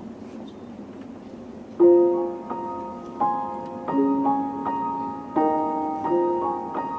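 Piano playing an introduction of struck chords, starting about two seconds in after low room noise, each chord ringing and fading before the next.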